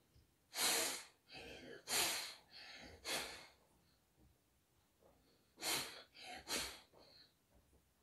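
A child forcefully blowing air out through his nose in short hard blasts, about three in the first few seconds and two more near the end. The later ones are into a cloth held over the nose, clearing mucus loosened by steam inhalation.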